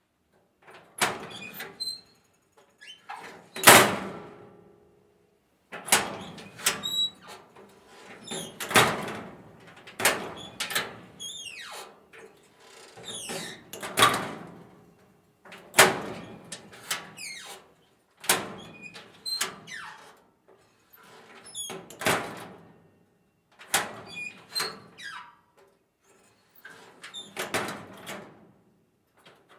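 Metal school locker door opened and closed over and over at varying speeds: latch clicks, short hinge squeaks and metallic knocks as the door shuts, about every two seconds.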